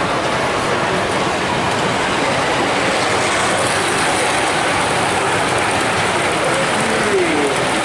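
Large-scale model train, a streamlined steam-outline locomotive hauling a rake of coaches, running past on the track: a steady mechanical clatter of wheels and running gear.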